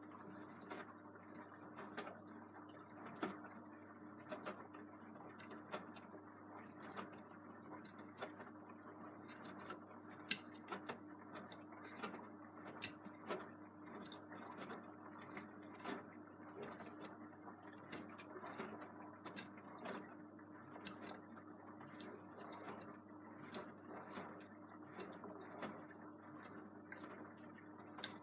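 Beko WM74165W 7 kg washing machine running its 90°C quick wash: a steady hum with a soft rush, dotted with many small, irregular clicks.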